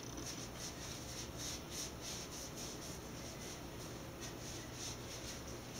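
Faint rubbing of an old cloth rag wiping down a disassembled AR-15 bolt by hand, in soft irregular strokes.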